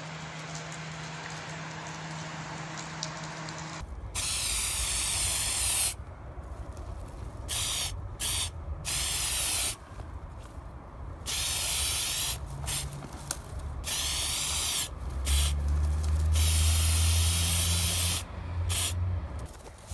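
Aerosol spray-paint can hissing in repeated bursts, some short and some up to about two seconds long, as it paints graffiti on a concrete wall. The bursts begin about four seconds in; before that only a steady low hum is heard, and a low rumble runs under the later bursts.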